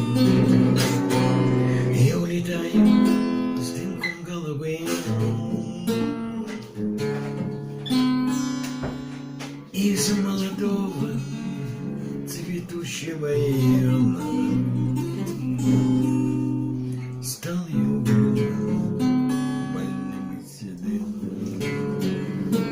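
Acoustic guitar strumming chords in an instrumental passage after the song's last sung line.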